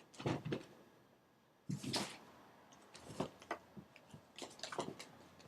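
Tarot cards being handled: a run of light clicks and taps, with a brief sliding rustle about two seconds in as a card is moved across the deck.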